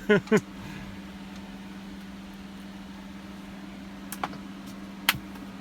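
Steady low machine hum, with two short sharp clicks near the end.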